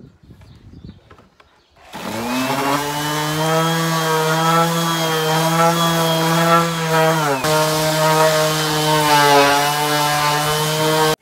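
Random orbital sander with an 80-grit disc starting up about two seconds in and running against wood to strip old varnish, a steady motor hum. Its pitch dips briefly about halfway through, and it cuts off abruptly at the end.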